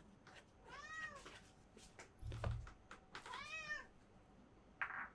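A cat meowing twice, faintly, each meow rising and then falling in pitch, with a low thump between the two meows.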